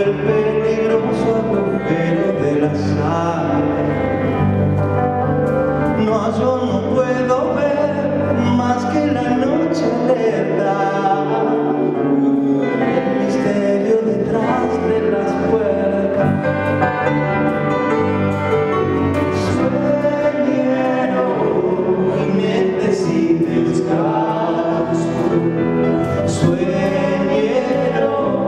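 Live band performance: two men singing a song together, accompanied by electric guitar and bass.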